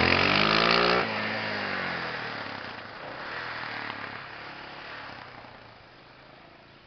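Yamaha Raptor 700R quad's single-cylinder engine accelerating away. It is loud at first and drops sharply about a second in, then its note rises and falls as it pulls off and fades steadily into the distance.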